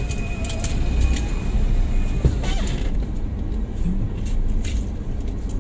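Low, steady rumble of a car driving slowly, heard from inside the cabin. A thin, high steady tone sounds through the first two seconds.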